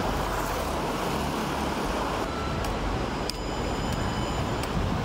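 Motor vehicle driving: steady engine and road noise, with a few short knocks.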